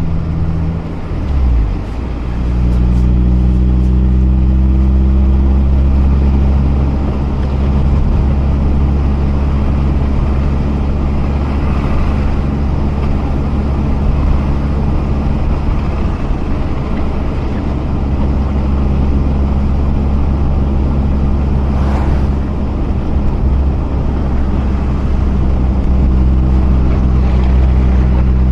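Mazda RX-8's rotary engine running at a steady cruise, with road noise over it. In the first two seconds the engine note drops briefly, then settles at a new steady pitch, and there is one short tick about 22 seconds in.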